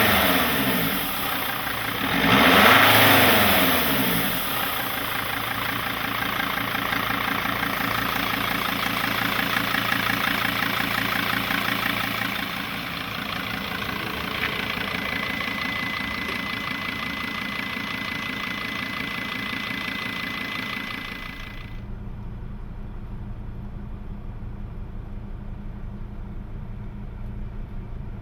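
Turbodiesel engine of a 2005 Sprinter 2.7L CDI, revved once early on and then running steadily; a thin high whistle joins it for several seconds, and about three quarters of the way through the sound drops to a quieter, duller running note. The engine has a turbo underboost fault (P0299) and loses power, which the owner takes for a failing turbo actuator.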